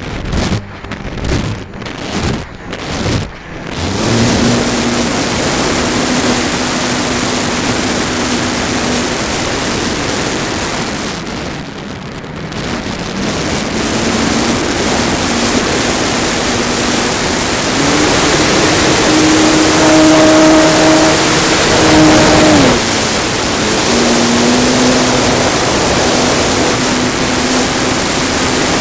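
Wind rushing over an onboard camera on a 64-inch Extreme Flight MXS RC aerobatic plane, with the steady whine of its electric motor and propeller. The loudness pulses at a little under two beats a second for the first few seconds. The sound dips briefly around twelve seconds. Later the whine rises in pitch and then drops away suddenly about 23 seconds in, before settling back to a lower whine.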